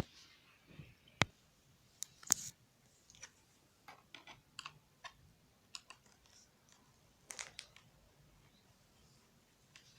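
Scattered sharp clicks and light knocks from hands working on a Sony Vaio E series laptop while its RAM is upgraded. The loudest come a little over a second in and just after two seconds in, with a small cluster about seven seconds in.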